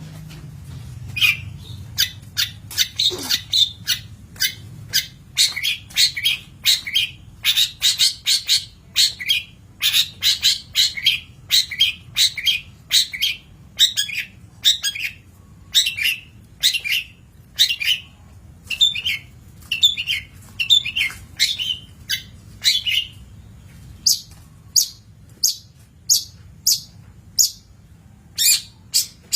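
Long-tailed shrike (cendet) calling: a long run of short notes repeated roughly twice a second, sitting high in pitch.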